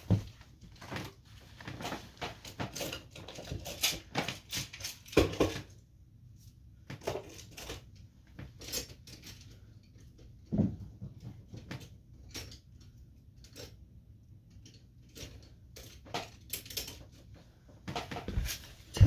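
Irregular knocks, taps and rustles of things being picked up, moved and set down while tidying a room, busiest in the first few seconds and sparser after, with a few louder knocks.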